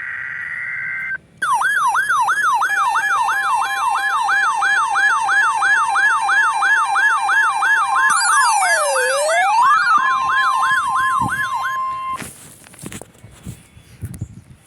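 NOAA Weather Radio weekly test: a short steady two-pitch data header tone, then an electronic siren alarm yelping about three or four times a second. Partway through, a slower wail sweeps down and back up, and a steady warning tone near 1 kHz sounds near the end. The alarm cuts off sharply about twelve seconds in.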